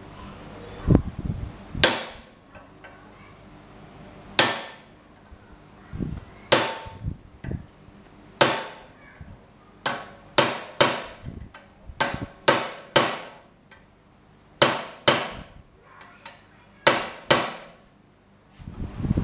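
Hammer striking a hand-held steel tool set on red-hot steel clamped in a vise: about fifteen sharp metallic strikes, each with a brief ring, coming singly and in quick pairs at an uneven pace.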